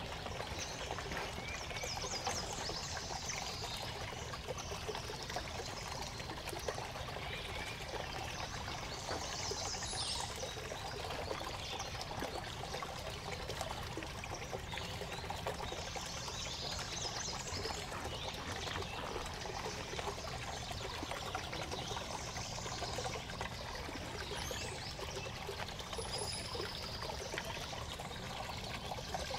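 Small stream trickling and burbling steadily.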